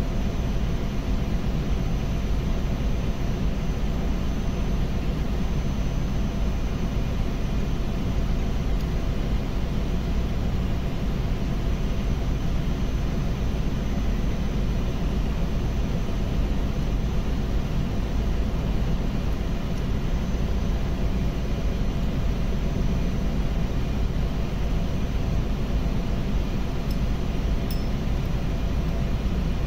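Steady, loud drone of running machinery, low and even throughout, with a few faint steady tones in it.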